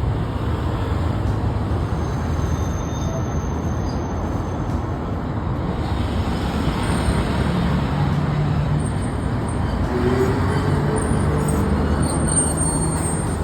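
Steady rumbling noise of a moving vehicle. Faint held tones come and go in the second half.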